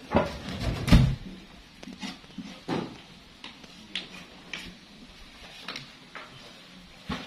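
Wooden thumps and knocks as logs and a long sawn slab are shifted and slid off a truck: two heavy thumps about a second in, then scattered lighter knocks.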